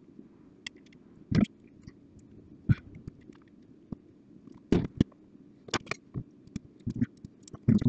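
Handling noise: scattered clicks and knocks as the metal disc-loading mechanism of a CD changer is handled and set down on a bench mat and small hand tools are put down, over a low steady background hum.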